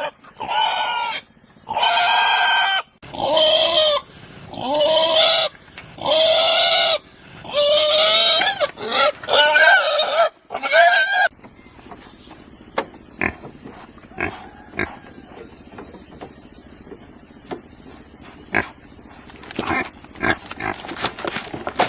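Pig squealing loudly, a string of long, high calls about a second each, one after another, then stopping about eleven seconds in; after that only scattered light knocks.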